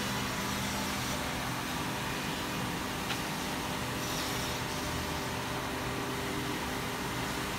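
Woodmaster WM-D200CNC-FR two-head, four-cutter CNC tenoning machine running: a steady hum of the spindle motors under an even whirring noise, with one light click about three seconds in.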